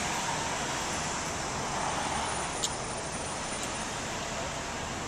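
Road traffic noise: a steady wash of passing cars, with a short sharp click about halfway through.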